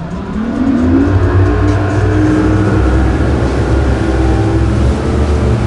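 Outboard boat engine throttled up. Its note rises over about the first two seconds, then holds steady and loud as the boat runs at speed.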